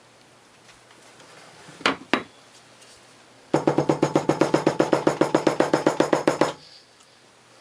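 Two sharp knocks, then a fast, even run of about two dozen hard taps, some eight a second for about three seconds: a hammer tapping down a leather seam freshly joined with contact cement.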